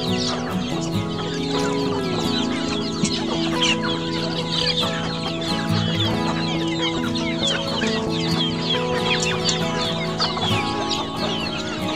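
A flock of chickens and chicks clucking and peeping as they peck at feed, many short calls overlapping, with background music of long held notes underneath.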